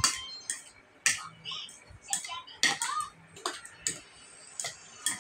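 Eating utensils tapping and clicking on dishware: about ten sharp, irregular taps.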